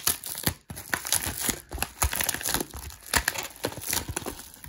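Metallic plastic bubble mailer being torn open and handled by hand: irregular crinkling and tearing of the plastic film.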